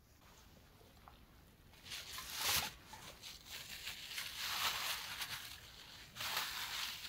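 Plastic bag rustling and crinkling as it is handled, in several bouts: about two seconds in, again through the middle, and once more near the end.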